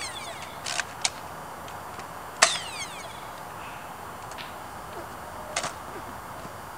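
A handful of sharp gunshot sound effects: a quick pair near the start, a single crack, then the loudest shot about two and a half seconds in trailing a falling, ricochet-like whine, and a last pair near the end.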